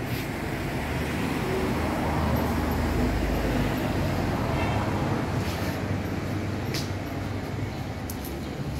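Street traffic: a motor vehicle's low engine rumble swells about two seconds in and eases off again over the next few seconds.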